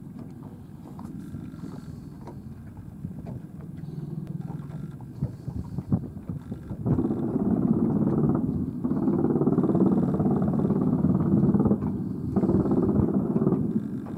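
CV-22 Osprey tiltrotor droning in flight overhead. From about seven seconds in, its gun fires three long bursts of rapid fire lasting about one and a half to three seconds each, with short gaps between them, each burst starting and stopping sharply.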